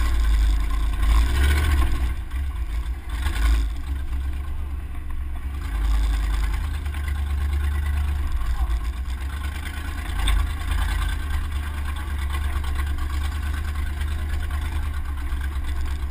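Full-size truck driving along a dirt trail, its engine running under a heavy low rumble that swells and eases, heard from a camera mounted on the outside of the door.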